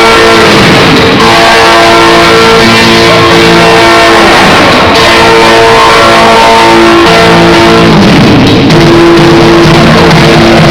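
Music with guitar, recorded very loud and with terrible, overdriven sound quality.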